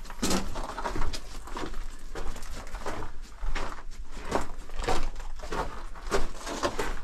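Footsteps crunching over the loose rock and gravel floor of a narrow mine tunnel, in an uneven walking rhythm of about one to two steps a second.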